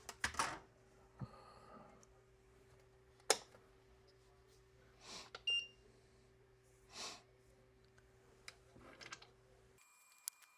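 Quiet handling of a circuit board while fitting pin headers: a few small clicks and taps over a low steady hum, with a short high beep about five and a half seconds in. The hum cuts off abruptly near the end.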